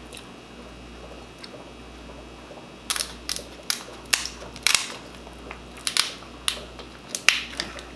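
Kitchen scissors cutting through a boiled lobster tail's shell: a run of sharp, uneven cracks and snaps that starts about three seconds in.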